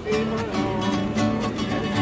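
Acoustic guitar strummed in a steady rhythm, with a man's voice singing over the chords.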